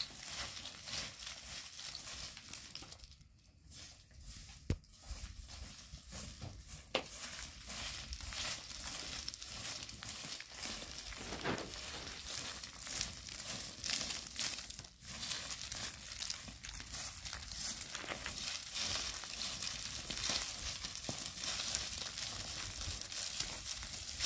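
Straw hand broom sweeping dry, dusty ground strewn with gravel, in repeated brisk scratchy strokes, with a short pause about three seconds in.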